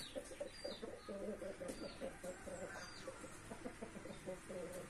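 Chicken held pinned to the ground giving a quiet, rapid trilling murmur, a sign of a nervous, restrained bird.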